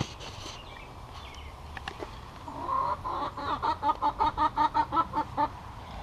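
A backyard hen clucking: a drawn-out call about two and a half seconds in, then a fast, even run of clucks, about five a second, that stops shortly before the end.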